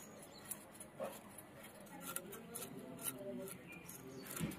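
Small parse mullet being scaled against a boti blade: a run of short, sharp scratching clicks as the scales are scraped off.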